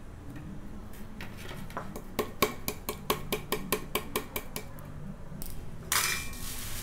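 A small stainless-steel mixer-grinder jar being knocked repeatedly against a ceramic plate to shake out freshly ground masala powder: a run of quick, ringing metallic taps, about four a second, for around three and a half seconds. A brief scraping noise follows near the end.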